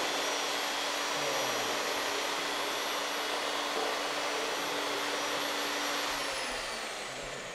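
Electric power mixer's motor running steadily at high speed while stirring thick clay mud, with a steady whine. Near the end the whine falls and the sound eases off as the motor winds down.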